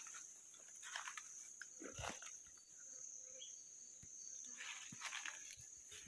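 A steady high-pitched insect drone in forest, with scattered footsteps rustling through undergrowth about one, two and five seconds in.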